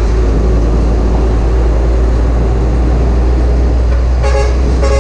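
Nissan Diesel truck's engine running steadily at close range as it tows its trailer, a loud low drone mixed with road noise. A vehicle horn toots twice near the end.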